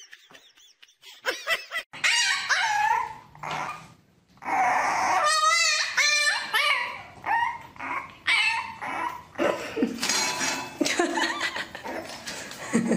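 A puppy yipping and whining again and again in short cries that bend up and down in pitch, starting about two seconds in.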